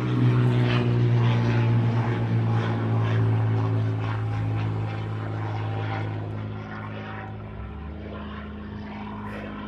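Propeller aircraft droning overhead with a steady low engine hum that fades gradually as it passes.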